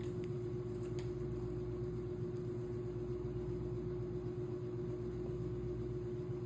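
A steady hum with one constant mid-low tone over an even hiss, and a faint click about a second in.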